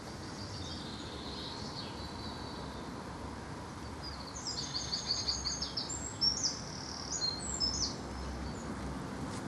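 A songbird singing a quick run of short, high chirping notes from about four seconds in, with a fainter high phrase near the start, over steady outdoor background noise.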